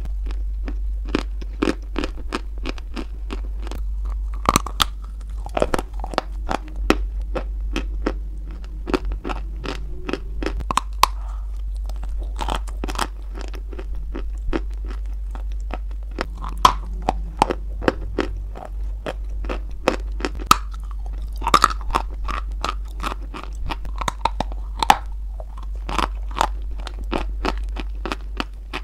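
Close-miked crunching of a dry white chalky lump being bitten and chewed: a dense run of sharp, crackly crunches that come in clusters, over a steady low hum.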